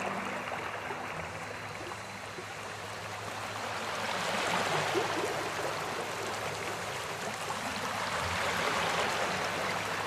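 Shallow rocky stream flowing over stones: a steady rush of water that grows slightly louder a few seconds in.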